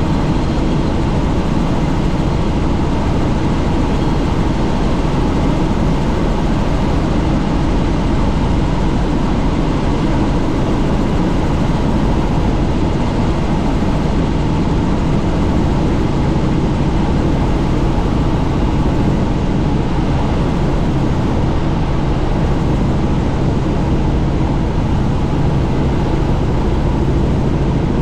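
Helicopter in flight heard from inside the doors-off cabin: steady engine and rotor noise with a constant low hum under a wide rush of noise.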